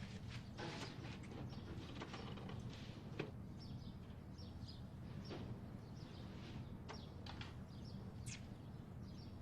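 Faint ambience with a steady low hum and scattered short, high chirps, plus a few faint clicks.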